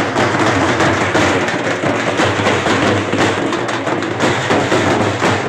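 Halgi frame drums beaten with rapid, closely spaced strokes in a continuous drumming rhythm.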